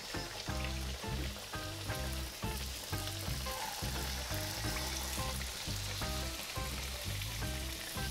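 Pirozhki sizzling as they fry in hot oil in a frying pan. Background music with a steady beat plays over it.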